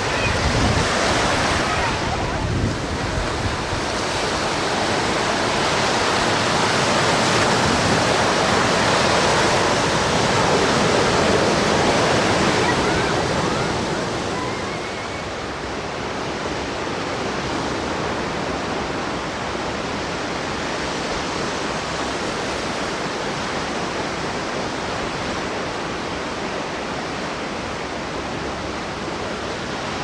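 Ocean surf breaking and washing up a sandy beach. It swells louder through the first half, then eases about halfway through into a steadier wash.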